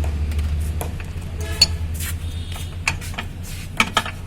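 Scattered sharp metallic clicks and knocks from hand tools working on a car's gearbox, over a steady low rumble.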